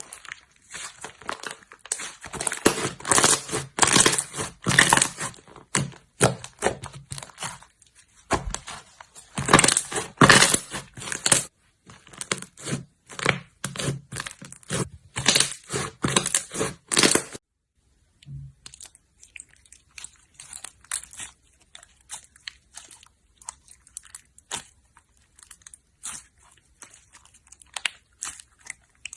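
Slime being squeezed and stretched by hand, giving dense runs of fine crackling and popping clicks. About two-thirds of the way in the sound breaks off briefly, then goes on quieter and sparser.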